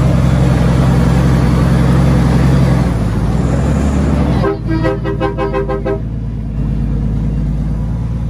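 Heavy diesel dump truck's engine running steadily. About four and a half seconds in, a vehicle horn sounds in a quick string of short pulses, about five or six a second, for about a second and a half.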